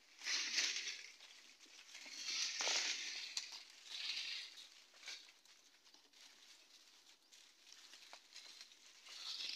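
Footsteps crunching through dry leaf litter and brittle twigs, in a few separate crackling bursts with small sharp snaps between them.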